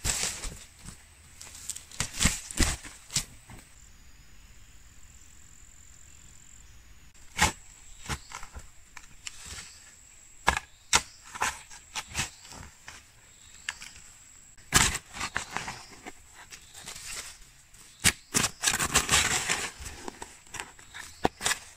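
A metal shovel chopping into stony soil: irregular sharp strikes of the blade on earth and stones, with a longer stretch of scraping and crumbling dirt near the end.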